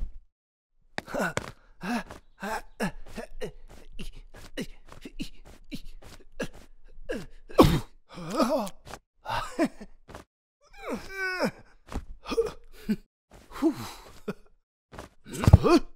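Cartoon characters' wordless vocal sounds: a string of short gasps, groans and grunts, with one longer wavering cry about eleven seconds in.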